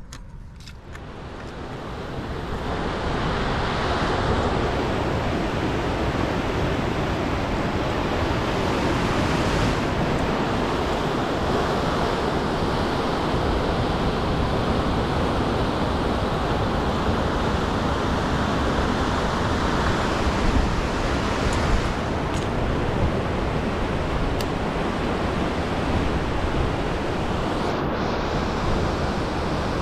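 Whitewater river rapids rushing steadily, rising in level over the first few seconds.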